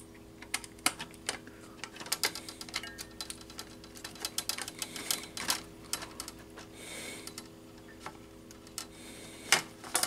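Hand screwdriver tightening a terminal screw on a metal pull-station mounting bracket: a run of irregular light clicks and taps as the tip works the screw, over a faint steady hum.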